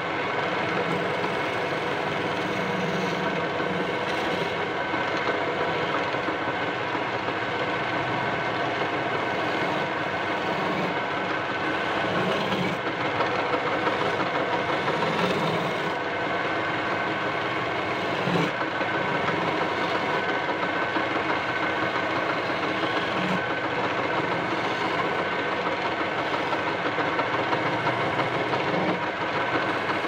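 Wood lathe running steadily, its motor giving a constant hum, while a hand-held turning chisel cuts and scrapes the spinning wooden spindle.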